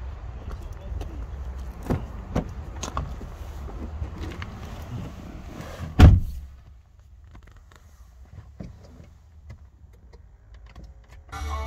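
Car door handled and opened, then slammed shut with a heavy thud about six seconds in; the sound then turns quiet and enclosed inside the cabin until the engine cranks and fires near the end.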